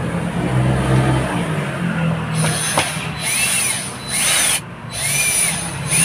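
Cordless drill driving screws into a seat headrest's mounting bracket with short trigger pulls. It starts a little over two seconds in: about five quick bursts, the motor's whine rising and falling with each pull.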